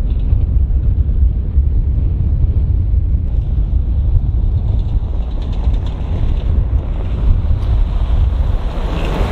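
Vehicle on the road, a steady low rumble of engine and road noise.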